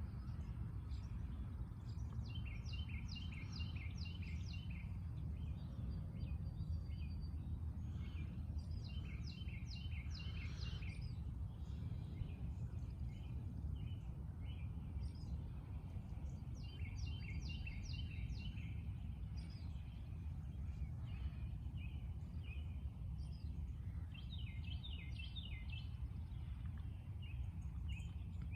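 Songbird dawn chorus: short, rapid song phrases of quick repeated notes sung again every several seconds, over a steady low rumble.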